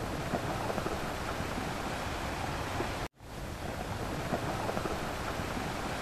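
A steady rain-like hiss that cuts out for an instant about three seconds in, then carries on.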